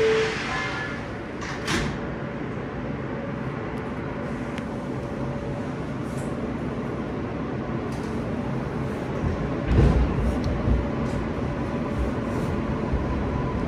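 Inside a New York subway car on the L line: a falling two-note door chime ends right at the start, and the sliding doors shut with a bang a couple of seconds in. The car's steady running rumble follows, with heavy low clunks around ten seconds in.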